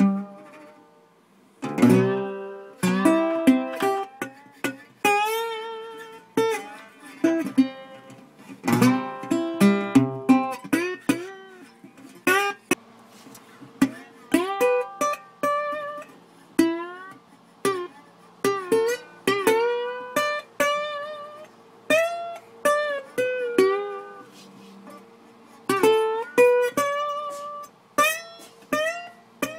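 Solo guitar music: picked notes with bent pitches, broken by a few strummed chords.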